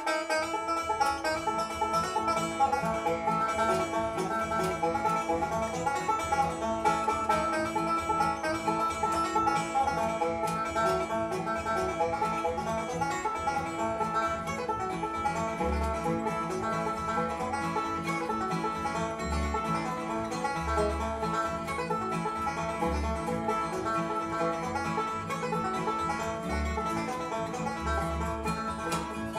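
Bluegrass instrumental played live, led by a resonator banjo picking fast runs, backed by a strummed acoustic guitar.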